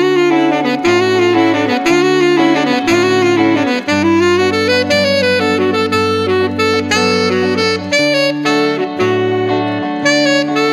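Saxophone playing a solo melody that winds up and down over electric guitar chords, which change about once a second underneath.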